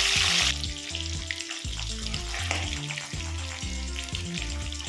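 Cornflour-coated chicken pieces deep-frying in hot oil in a kadai. The sizzling is loud, then drops sharply about half a second in, leaving a fainter sizzle with scattered clicks of stirring. Background music with a repeating bass line plays throughout.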